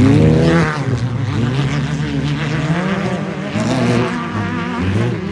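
Off-road race vehicle engine revving hard, its pitch climbing steeply in the first second, then rising and falling with the throttle.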